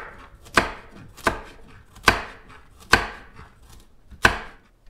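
Knife chopping up raw chicken on a cutting board: five sharp chops, roughly a second apart.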